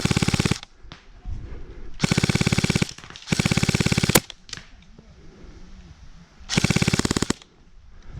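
Airsoft gun firing four short full-auto bursts of rapid, evenly spaced shots, with pauses between them.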